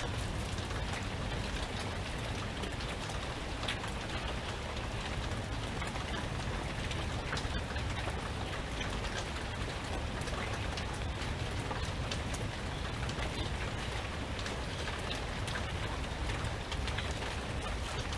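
Steady rain falling, with many individual drops ticking sharply over an even hiss and a low, steady rush underneath.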